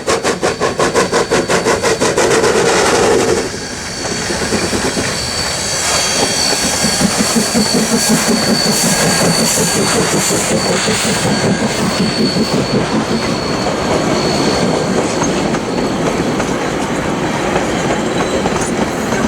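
Steam locomotive A428 passing with rapid, even exhaust beats, about three to four a second, which stop suddenly about three and a half seconds in. The train's carriages then roll past, wheels clattering steadily over the rail joints, with a thin high squeal for a few seconds in the middle.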